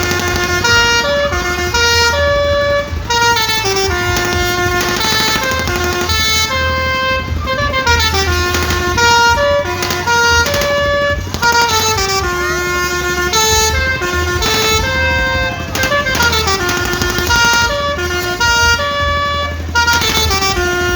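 Telolet horns on a kora kora swinging pirate-ship ride, playing a continuous run of stepped horn melodies whose note patterns repeatedly climb and fall, over a low steady rumble.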